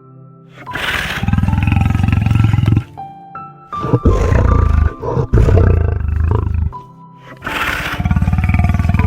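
A large animal roaring: three long, deep roars, each two to three seconds, with short pauses between them.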